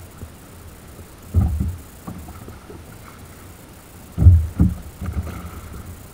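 Rough sea around a plastic fishing kayak: two heavy low thuds about three seconds apart over steady wind and water noise.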